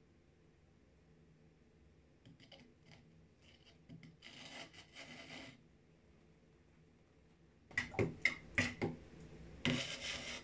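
Metal spoon scraping and tapping against a plastic jug and sieve while scooping liquid glaze: a scrape about four seconds in, a run of sharp taps near eight seconds, and another scrape near the end.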